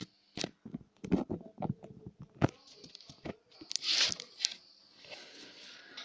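Camera handling noise: a run of sharp, irregular knocks and clicks over the first few seconds, then rubbing and rustling as the camera is moved about.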